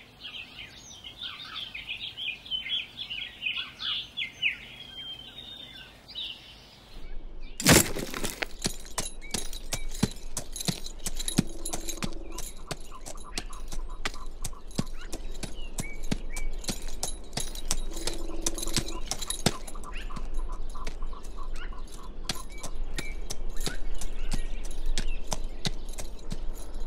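Birds chirping in quick, high twittering phrases, then a sudden loud crack, followed by a dense, irregular crackle of clicks over a low hum.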